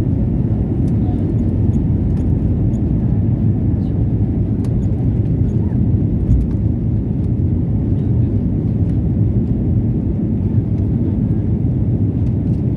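Airplane engines and airflow making a steady low drone, unchanging throughout.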